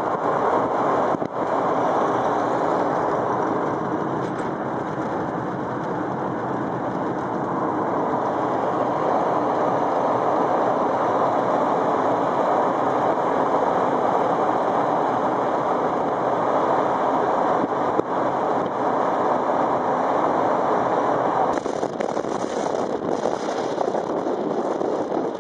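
Steady road and wind noise from a vehicle driving along a sealed road. Wind starts buffeting the microphone in the last few seconds.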